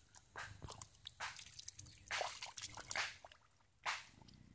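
Bare hands squelching and splashing in wet mud and shallow water while groping for fish, in a string of irregular wet bursts.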